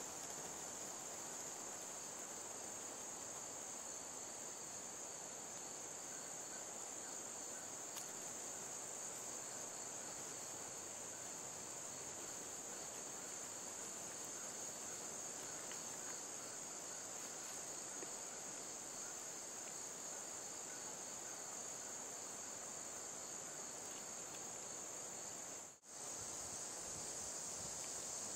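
Steady, high-pitched chorus of crickets or similar singing insects, a continuous shrill trill that cuts out for a moment near the end.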